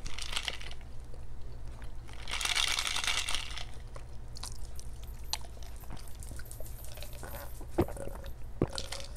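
A person drinking from a plastic tumbler: a longer hissing sip about two seconds in, followed by small swallowing clicks and light knocks near the end.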